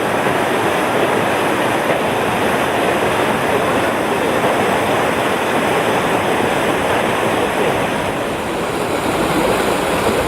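Pinaisara Falls waterfall: water falling and crashing in a loud, steady rush with no let-up.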